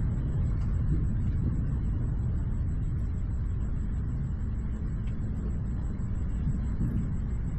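Steady low rumble with no distinct events, its energy mostly in the deep bass.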